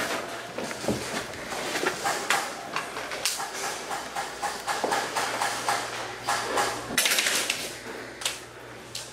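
Airsoft guns firing: rapid, irregular clicks and sharp cracks in short bursts, with a dense cluster about seven seconds in.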